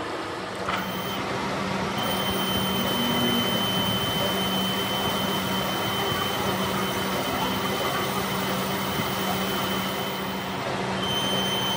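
Metal lathe starting up and running while its tool bit machines the gunmetal bush bearing pressed into a starter motor's end housing: a steady motor hum with a steady high whine from the cut, which drops out briefly near the end.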